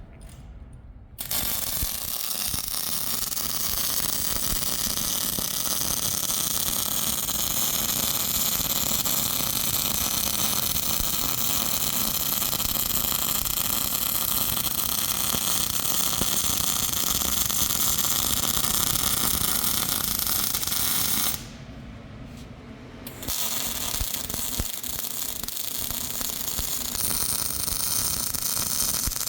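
MIG welder laying a weld run on steel: a steady hiss that starts about a second in, stops for about two seconds near the two-thirds mark, then starts again.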